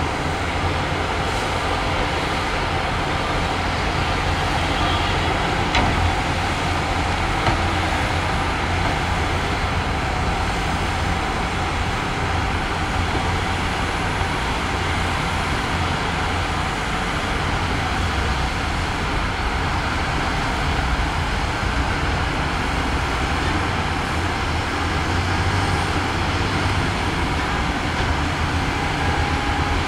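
Heavy diesel engines of earthmoving machinery running steadily under work, a constant low rumble with a couple of faint knocks about six to seven and a half seconds in.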